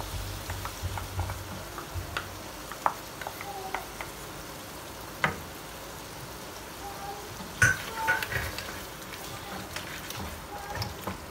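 Mutton and masala frying in oil in a wok, sizzling steadily, while yogurt is stirred in with a wooden spoon that knocks against the pan every so often.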